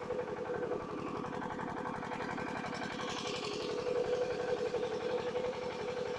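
An engine running steadily at an even idle, with a constant hum.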